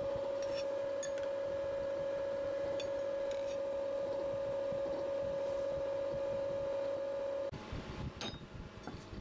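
A steady mid-pitched hum with a few light metallic clinks as the rusty sickle blade is moved against an iron block. About three-quarters of the way in the hum stops abruptly and a couple of knocks follow.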